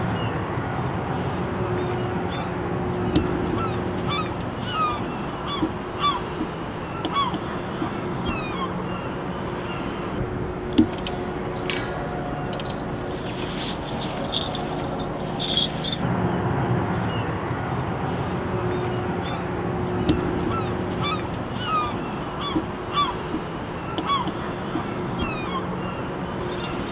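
Many short bird calls, coming one after another throughout, over a steady outdoor background hum.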